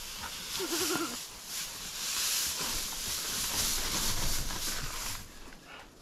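A goat bleats once briefly, a short wavering call about a second in, over steady rustling and crunching noise that dies away about five seconds in.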